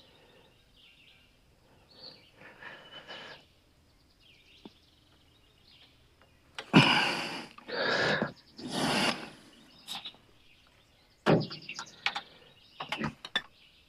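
Handling noises from putting a band blade onto a portable sawmill: three loud scraping sounds about a second apart, then several sharp clicks. Faint bird chirps come through in the quiet stretches.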